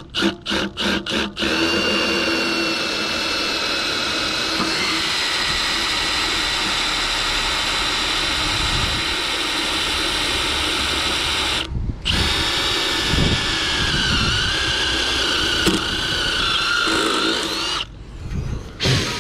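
Milwaukee cordless drill running a small titanium drill bit into the hub of a condenser fan blade seized on its motor shaft, drilling the hub out to free it. A few quick trigger pulses, then long steady runs with a high motor whine. The drill pauses briefly about twelve seconds in, its pitch wavers under load afterward, and it stops shortly before the end with a couple of short bursts.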